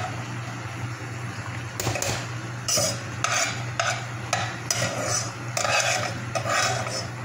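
A utensil scraping and turning long-grain rice in a nonstick pan. About a dozen short scrapes come one or two a second over a steady low hum from the stove area.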